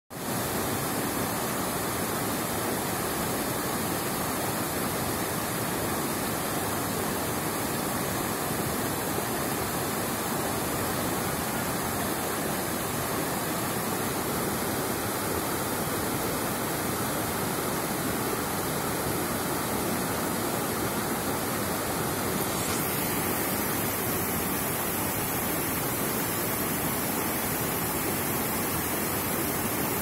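Steady rushing of water pouring over a stepped cascade and churning through rocky rapids below a waterfall.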